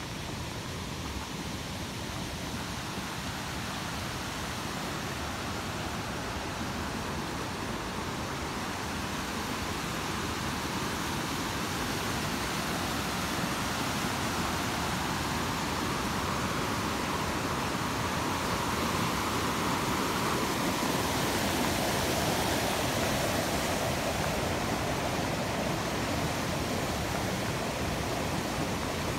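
Rushing water, a steady, even rush that grows slowly louder, as if it is being approached.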